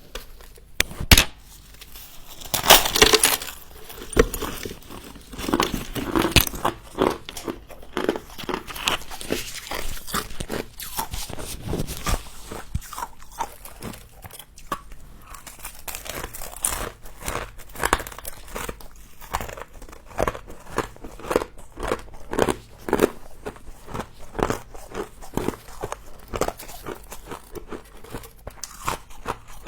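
Close-up biting and chewing of crunchy frost: irregular crisp crunches, several a second, loudest a few seconds in.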